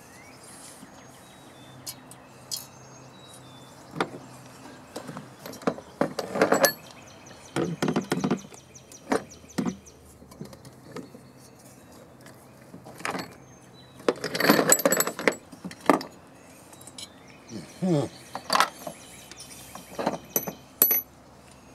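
Scattered metal clinks, clicks and knocks from a small OHV engine's cylinder head and its valve parts being handled and turned over, with a louder cluster of clattering about two-thirds of the way through.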